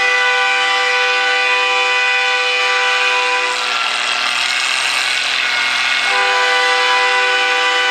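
Antique tractor engine running steadily at a held throttle, a constant droning tone, with a louder rushing noise swelling over it for a couple of seconds in the middle.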